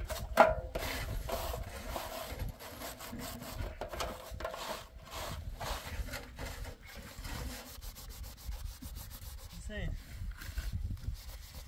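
Dishes being scrubbed by hand with a sponge over a metal tray: repeated short rubbing strokes on the plates, with one sharp knock about half a second in.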